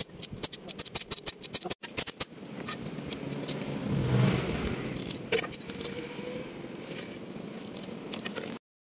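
Quick metallic clicks and clinks of a socket bar working a plug on an excavator's travel-motor final-drive hub, followed by a low rumble that swells about four seconds in; the sound cuts off abruptly near the end.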